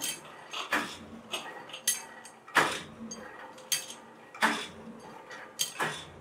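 Sharp metallic clanks and clinks at uneven intervals, about eight in all, each with a short ring: steel wrench-handle rods knocking against one another.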